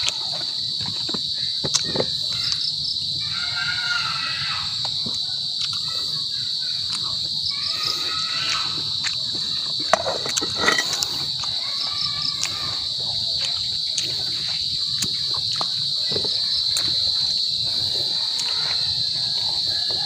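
Steady high-pitched chorus of insects, with faint voices in the background and a few sharp clicks about halfway through.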